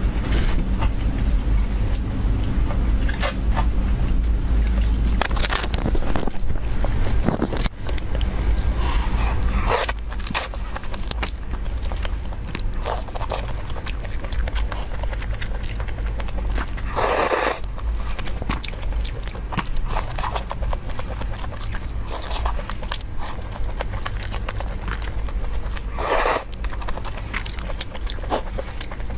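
Close-up eating sounds of noodles in broth: chewing and wet mouth noises with short clicks of wooden chopsticks against a ceramic bowl, and two longer slurps about 17 and 26 seconds in. A steady low hum runs underneath.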